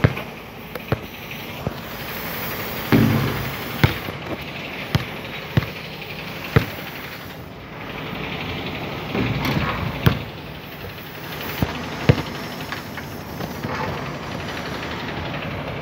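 Basketball bouncing on pavement and striking the rim and backboard: about a dozen sharp thuds at uneven intervals over steady outdoor background noise, with two low rumbles about three and nine seconds in.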